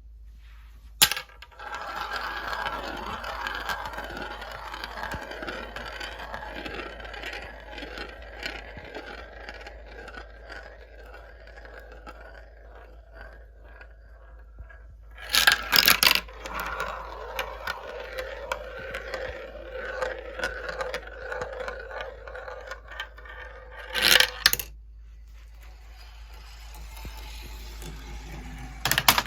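Marbles rolling along a marble run's tracks with a continuous rolling rumble and many small clicks. Short loud clatters of marbles dropping and striking come about a second in, about halfway, about four-fifths through and at the very end.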